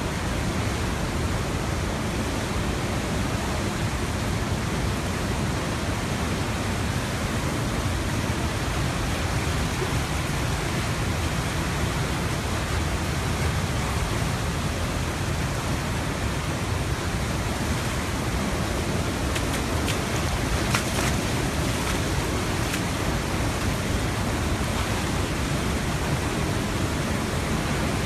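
The Tanaro river in flood, fast brown water rushing over the streets with a steady, unbroken rushing noise.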